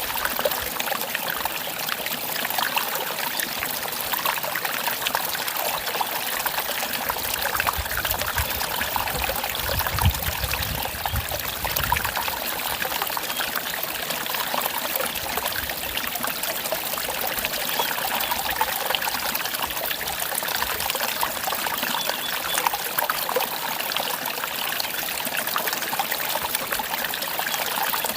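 Mountain stream trickling and splashing steadily over rocks. A brief low rumble comes about ten seconds in.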